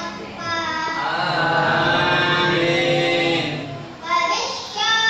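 A boy's voice reciting the Qur'an in a melodic, chanted style: long flowing phrases with a long held phrase in the middle, a brief break about four seconds in, then the next phrase begins.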